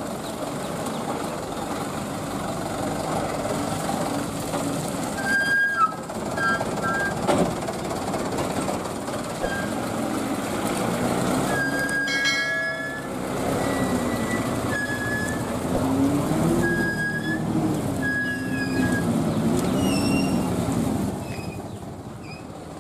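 A loaded Mitsubishi Fuso dump truck's diesel engine running as the truck moves slowly, its pitch rising and falling several times in the second half. Several short, high-pitched squeals cut through it.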